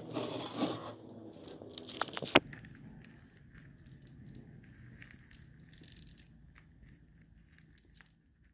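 Crinkling, crackling handling noise, with a sharp click about two seconds in, then faint scattered ticks.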